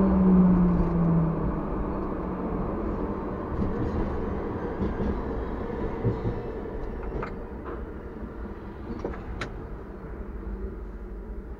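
TW6000 tram slowing to a stop: the motor whine falls in pitch in the first second or so, and the rumble of the wheels on the rails gradually dies away, with a few sharp clicks in the second half.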